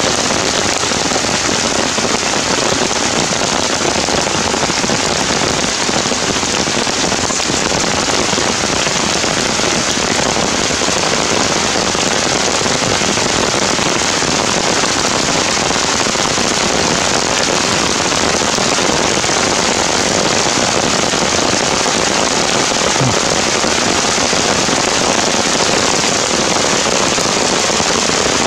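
Heavy rain falling steadily: a dense, even hiss of rain on surfaces.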